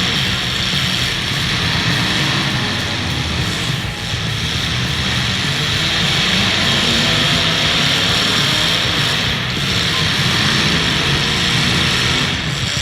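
Engines of full-size demolition derby cars running together in a loud, steady, unbroken din.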